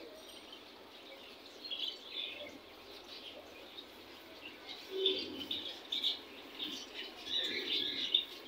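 Small birds chirping in short, repeated bursts of high notes.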